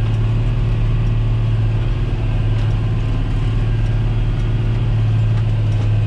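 John Deere 8100 tractor's six-cylinder diesel engine running steadily under load while pulling a disc harrow, heard from inside the cab as an even, unchanging low drone.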